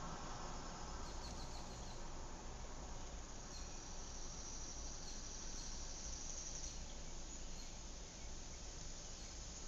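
Outdoor ambience with insects chirring: a short run of high chirps about a second in, then a high, steady buzz that swells for a few seconds in the middle, over a low rumble.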